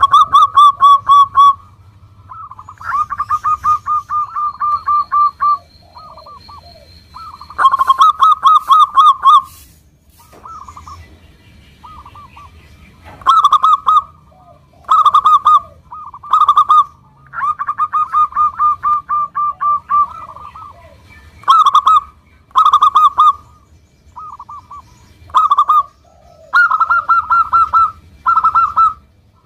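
Local zebra dove (perkutut) singing: a dozen phrases of fast, clipped cooing notes, some short bursts of under a second, others long trains of two to three seconds, with fainter calls between them.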